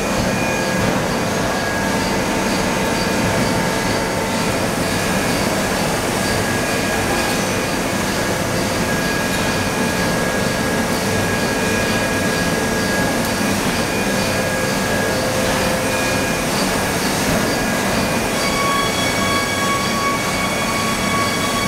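Ring rolling mill running: a steady industrial machine noise with several high squealing tones that fade in and out, a new one starting near the end.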